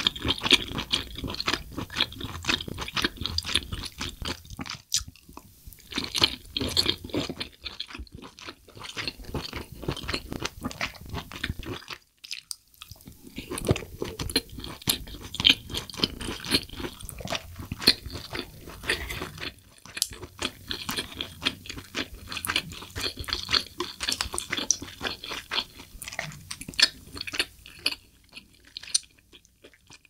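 Close-miked chewing of firm, springy spicy braised abalone: many quick wet crunching and squishing mouth sounds, pausing briefly twice.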